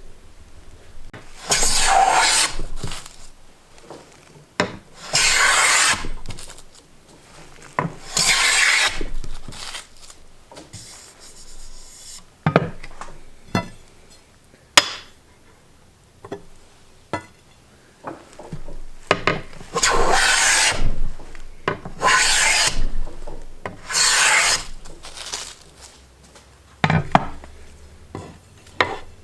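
Miller Falls No. 22 jointer plane taking full-length shavings off a hardwood board: six rasping strokes of about a second each, three near the start and three in the second half, with a few sharp knocks between them.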